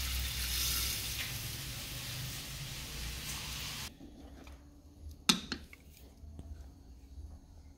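Raw rice pouring from a bag into a metal pot of broth: a steady hiss that stops abruptly about four seconds in. Then quieter stirring in the pot with a wooden utensil, with one sharp knock of it against the pot about a second later.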